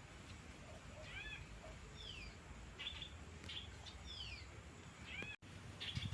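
Birds calling: short, slurred chirps that arch or fall in pitch, repeated roughly once a second over a faint low background rumble. There is a brief dropout near the end.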